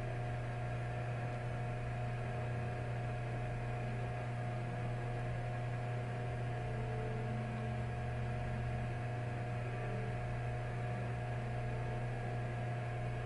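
Steady low hum with fainter higher tones and a light hiss over it, unchanging, with no clicks or other events.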